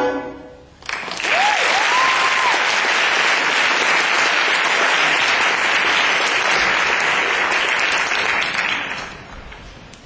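Audience applauding after an a cappella male choir's final chord dies away, with a short two-part whistle from the crowd just after the clapping starts. The applause begins about a second in and dies down near the end.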